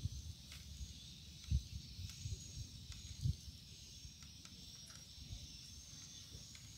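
Insects trilling steadily, a faint thin high buzz, with a few soft low thumps in the first half.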